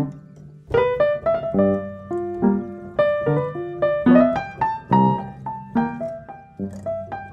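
Light instrumental background music with a keyboard melody of quick struck notes.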